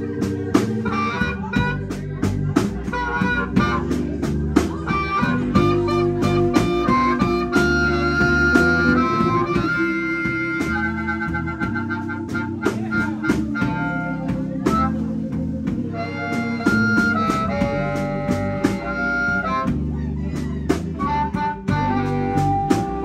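Live electric blues band: a blues harmonica solo played into a handheld microphone, with held and bending notes over electric guitars, bass guitar and a steady drum beat.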